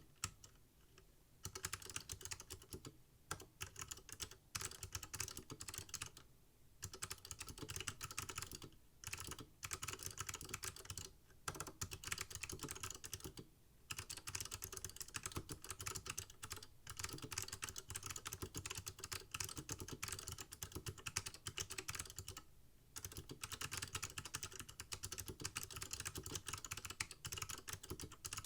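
Keyboard with new-old-stock SMK Gen 2 (Monterey) Alps-mount switches and Apple Extended Keyboard II keycaps being typed on in fast, steady runs of keystrokes, with several brief pauses.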